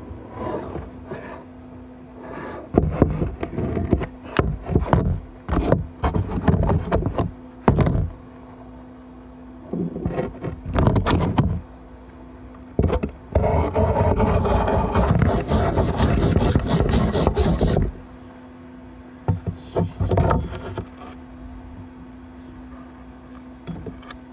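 Arc welding: the arc crackles in a string of short bursts, then in one longer run of about five seconds, then two more brief bursts near the end, with a steady electrical hum underneath between the welds.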